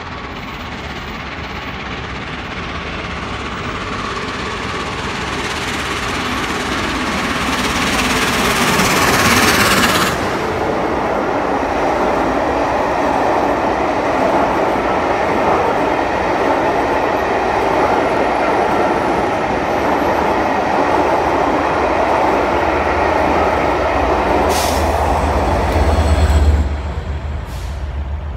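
Peppercorn A1 steam locomotive 60163 Tornado approaching and passing at speed. It grows steadily louder until it goes by about ten seconds in. Its string of Pullman coaches then rolls past with a steady rumble of wheels on rail for about fifteen seconds, and the sound drops away near the end as the last coach clears.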